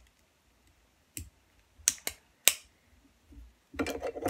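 Plastic LEGO pieces clicking together as a door is pushed into its door frame: a few separate sharp clicks, then a quick run of clicks and knocks near the end.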